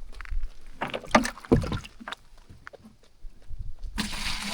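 Scattered knocks and bumps as rain-filled buckets are handled, then water starts pouring and splashing about four seconds in.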